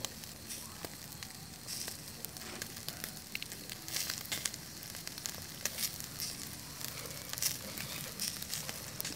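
Meat sizzling on a wire rack over a small charcoal grill: a steady hiss with scattered crackles and pops.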